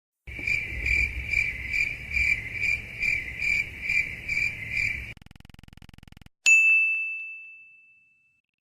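Cricket chirping, about two and a half chirps a second for some five seconds. After a brief faint buzz comes a single bright ding that rings out and fades.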